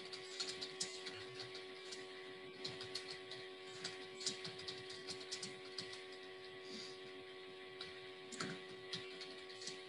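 Computer keyboard typing: quick, irregular key clicks of someone typing a sentence, faint, over a steady hum.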